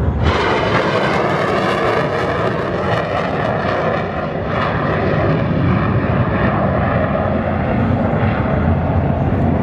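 Romanian MiG-21 LanceR's Tumansky R-25 afterburning turbojet running at full afterburner as the jet climbs and rolls: loud, steady jet noise.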